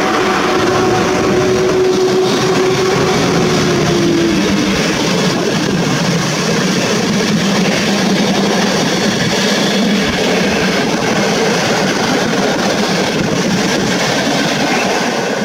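Passenger train hauled by an EP07 electric locomotive rolling past close by, its coaches running over the rails with a steady, loud wheel-and-rail noise. A steady tone from the train fades out about four seconds in.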